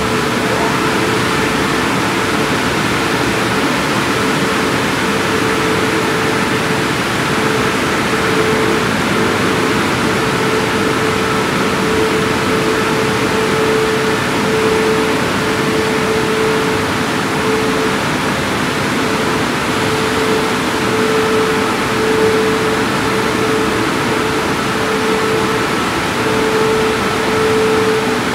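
Christ automatic car wash gantry running: a loud, steady rush of machinery and water, with a mid-pitched hum that cuts in and out.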